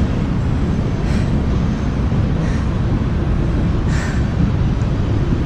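Steady low rumbling of wind buffeting the microphone, with a few faint ticks.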